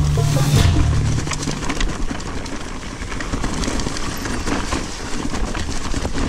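Mountain bike rolling along a trail: continuous tyre and rattling noise with wind on the mic. Background music with a steady bass ends about a second in.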